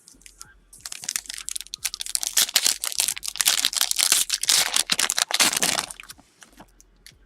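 Crinkling and tearing of a foil trading-card pack wrapper being ripped open, a dense run of crackles from about one second in until about six seconds in.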